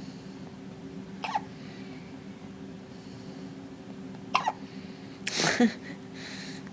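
A baby hiccupping: two short, sharp hiccups about three seconds apart. A longer, louder throaty sound follows about a second after the second hiccup.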